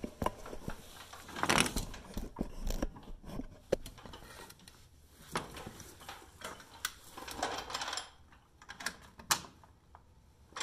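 Scattered clicks, clinks and knocks of tools and parts being handled, with brief rustling, about a second and a half in and again about seven seconds in.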